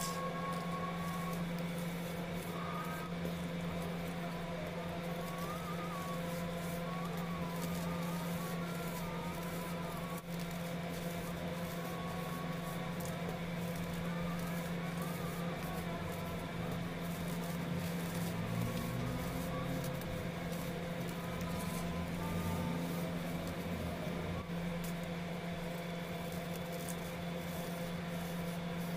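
Baking soda cakes being crushed and crumbled by hand, soft gritty crunching and powder sifting through the fingers, over a steady low background hum.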